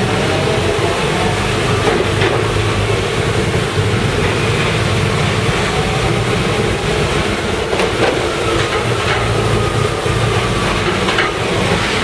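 Honda CB1300's inline-four engine and the motorcycle ahead running slowly in low gear inside an enclosed rail carriage, the rumble ringing off the metal walls. A few short clanks come about two, eight and eleven seconds in.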